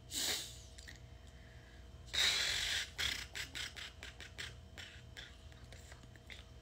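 A woman blowing out breath through pursed lips: a short puff right at the start and a longer, louder one about two seconds in. A string of short soft noises follows.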